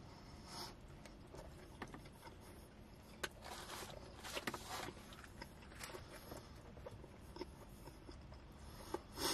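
Faint chewing of a shawarma wrap: soft mouth clicks and smacks scattered through, with a few slightly louder moments, the loudest just before the end.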